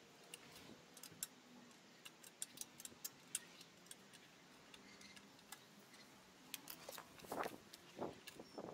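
Faint, irregular metallic clicks and ticks of a screwdriver working at rusted screws and bolts on a cast iron bench frame, with a few louder taps near the end.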